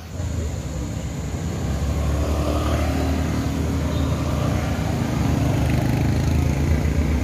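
An engine running steadily with a loud low drone, starting at once and getting a little louder over the first couple of seconds.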